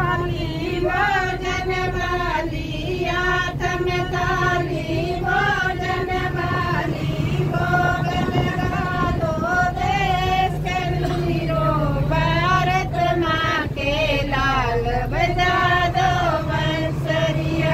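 Women singing a song together in long, held melodic lines, with the steady low drone of the bus's engine underneath.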